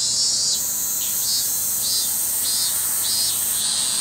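Cicadas singing: a steady high-pitched drone, with a second, lower call pulsing a little under twice a second over it.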